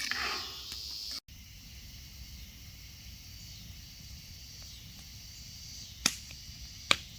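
Insects chirping steadily in the evening, then two sharp pops about six and seven seconds in.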